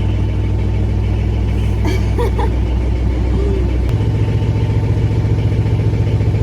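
Leyland Synchro 262 tractor's four-cylinder diesel engine running steadily. About four seconds in the note changes and a stronger, regular throb sets in.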